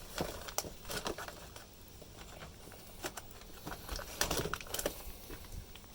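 Handling noise from cheeses being taken out and moved about in a fridge: rustling and light knocks, in a cluster in the first second and again about four seconds in.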